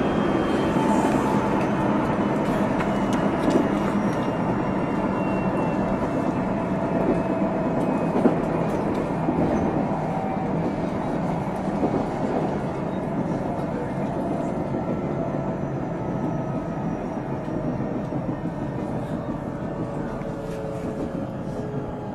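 Interior running sound of a JR Central 373 series electric multiple unit (the F2 set, known for an unusual noise) with its Toshiba VVVF inverter drive, over a steady rumble of wheels on rail with occasional clicks. The motor and inverter whine slowly falls in pitch and the overall sound gets gradually quieter, as the train slows for the next station.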